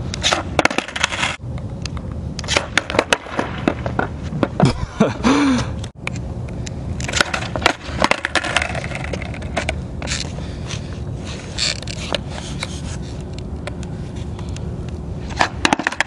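Skateboard on asphalt: a steady rumble of the wheels rolling, with many sharp clacks and knocks as the board hits the pavement and the rider's feet come on and off it during trick attempts.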